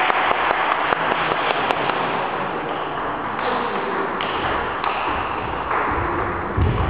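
Table tennis ball clicking against bats and the table during a rally, light taps over a steady background noise of the sports hall, with a dull thump near the end.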